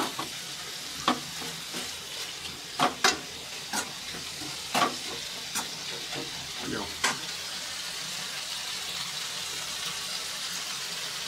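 Pork intestine curry sizzling in a frying pan, stirred with a slotted metal spatula that scrapes and knocks against the pan a handful of times. After about seven seconds only the steady sizzle is left.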